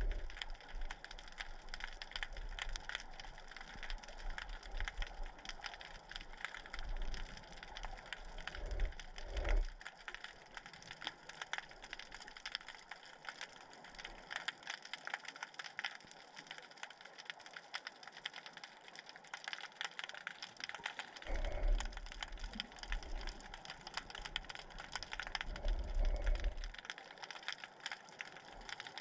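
Underwater sound picked up by a submerged camera: a dense, constant crackle of fine clicks, with low rumbles swelling up a few times: at the very start, about nine seconds in, and twice after twenty seconds.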